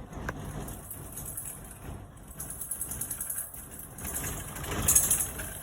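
Hardtail mountain bike being ridden, a steady low rumble of tyres and frame over rough ground, with a louder burst of hiss about five seconds in.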